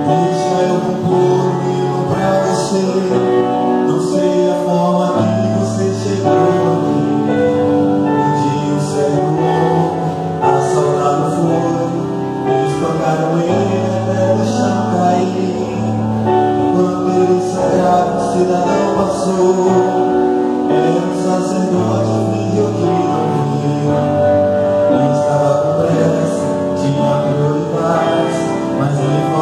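Gospel song sung by several men together with instrumental backing and a steady bass line.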